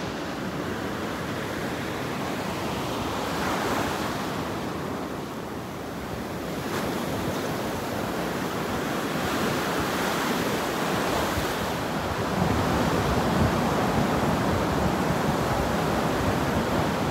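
Gulf surf breaking and washing up the sand: a steady rush of waves that eases a little about five seconds in and then builds louder. Wind buffets the microphone.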